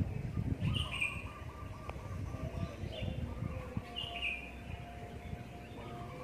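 Birds chirping outdoors, with two clear calls about a second in and about four seconds in, and a low rumble that fades after the first two seconds.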